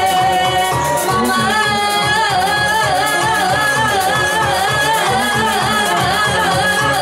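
Live folk ensemble playing: a woman singing a lively melody into a microphone over fiddles, with a steady fast pulse of about four beats a second underneath.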